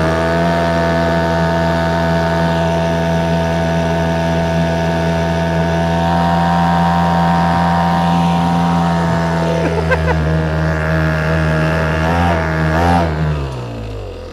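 Hangkai 3.5 hp outboard motor running steadily under throttle, pushing an inflatable raft. Near the end its pitch wavers and falls as it is throttled back, and it drops to a quieter, lower running speed.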